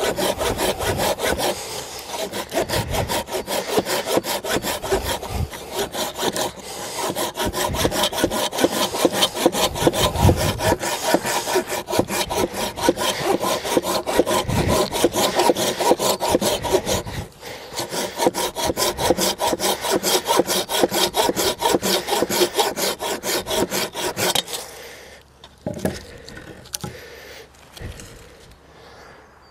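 Tajima G-Saw 240 folding saw, a hardened Japanese-steel blade that cuts on the pull stroke, sawing through wood in quick, even strokes. There is a brief break in the strokes about two-thirds of the way through. The sawing stops a few seconds before the end, leaving a few faint knocks.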